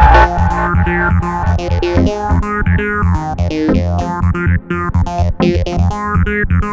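Electronic music: synthesizer chords and sampled keyboard notes over a steady, heavy bass beat.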